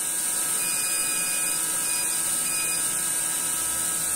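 Window-cleaning robot's suction fan running steadily with an even, high hiss, holding the Alfawise S60 Pro to the glass.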